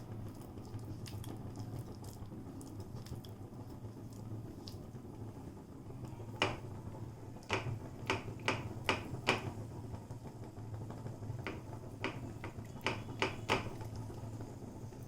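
Oil popping and crackling in a frying pan as chicken patties shallow-fry on a low flame: about a dozen sharp pops between roughly six and fourteen seconds in, over a steady low hum.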